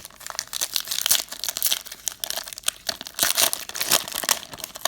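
Plastic wrapper of a basketball card fat pack being torn open and crinkled by hand, a dense run of crackling and rustling.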